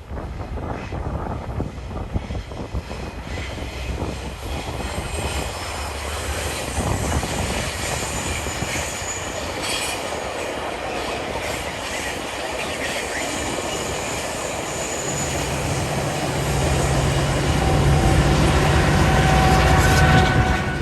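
A train rolling past, with rail noise and thin high wheel squeal. A steady low engine hum joins about three-quarters of the way through and grows louder, then the sound cuts off suddenly at the end.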